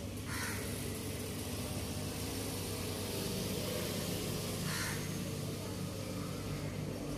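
Quiet early-morning street ambience: a steady low hum under a faint hiss, with two brief soft rushes, one about half a second in and one nearly five seconds in.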